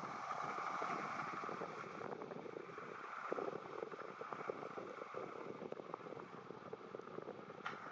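John Deere 5100M tractor running with a Welger RP 200 round baler at work: a steady mechanical noise with many small rattles and clicks.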